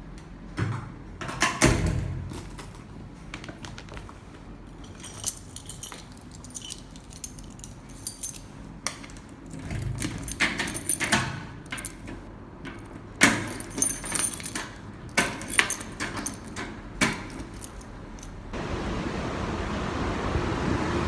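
Keys jangling and small metal objects clinking in a string of sharp, uneven clicks. Near the end they give way to a steady vehicle rumble.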